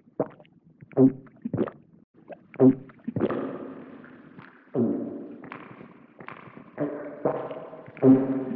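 A run of vintage-cartoon comedy vocal sound effects: a few quick pitched pops and blips, then a string of longer pitched calls that each start sharply and fade out over about a second.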